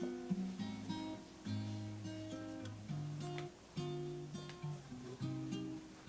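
Background music: acoustic guitar playing chords, with notes plucked and strummed at a steady pace.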